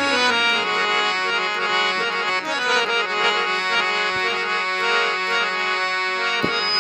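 Harmonium playing an instrumental melody of sustained reedy notes between sung verses of a Punjabi folk song.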